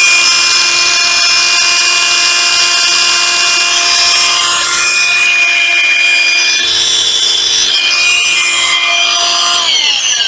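Hitachi 14.4 V cordless angle grinder running free with no load, a steady high whine with a couple of brief dips in pitch. Near the end it is switched off and the whine falls as the disc spins down.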